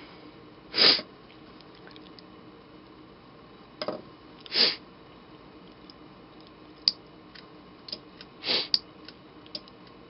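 Three short breath sounds, about a second in, midway and near the end, with several faint sharp clicks scattered among them over a quiet room background.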